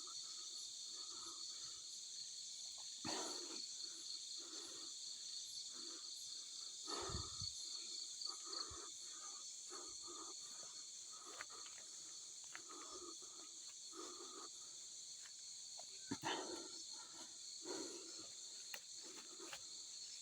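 Night insects such as crickets chirring in a steady high-pitched chorus, with short lower calls or rustles recurring about once a second and a few sharp clicks.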